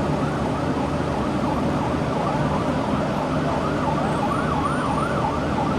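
Emergency vehicle siren on a fast yelp, its pitch rising and falling about three times a second, over a steady rumble of street traffic.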